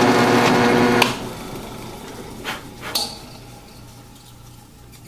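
Drill press motor running with a steady hum as a slow-turning drill bit cores the sugar-rocket propellant grain, then cut off with a click about a second in and winding down. Two short knocks follow near the middle.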